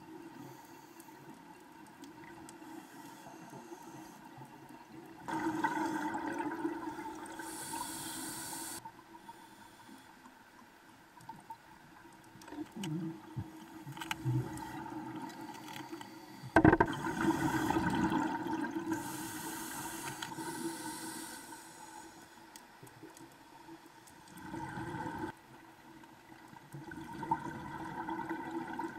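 Scuba regulator breathing heard underwater: long bubbling exhalations every several seconds, each ending in a hiss, over a faint steady hum. One sharp knock comes about two-thirds of the way through.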